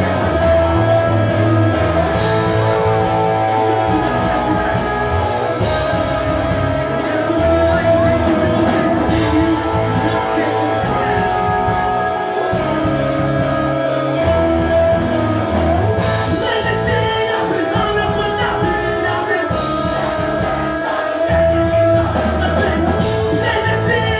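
Pop-punk band playing live: loud electric guitars, bass and drums, with singing.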